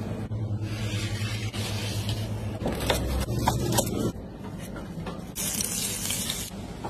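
A large knife crunching through a baked sesame-crusted pastry in a run of crisp cracks, then liquid poured over the cut slices in a hissing stream near the end. A steady low hum runs underneath.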